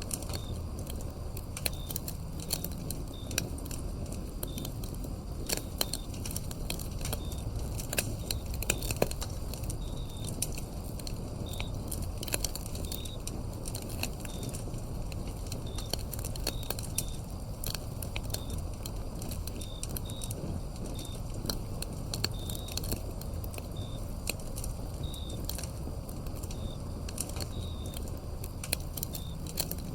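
Wood fire crackling, with frequent sharp pops over a low, steady rumble of the flames. Crickets chirp in short, repeated notes in the background.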